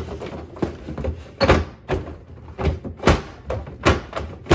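Plastic ice bin being slid back into a refrigerator's ice compartment: a string of knocks and clicks, with heavier thunks about a second and a half in, about three seconds in, and just before four seconds as it bumps and seats into place.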